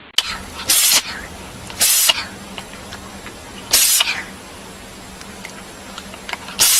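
A cat sneezing four times, each a short sharp blast, at uneven gaps of one to three seconds.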